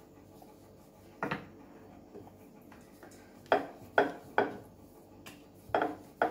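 Rolling pin knocking against a hard rolling board while dough is rolled out into a thin roti. There are about six sharp knocks: one about a second in, then a quicker run of them over the last three seconds.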